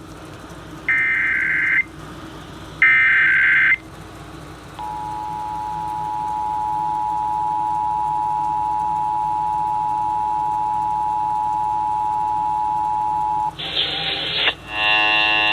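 Emergency Alert System test on an FM radio station: two short screechy bursts of SAME header data, a pause, then the EAS two-tone attention signal (853 and 960 Hz) held steadily for about nine seconds. It is cut off by a brief burst of noise, and music starts near the end with no spoken test message, which is how this required monthly test failed.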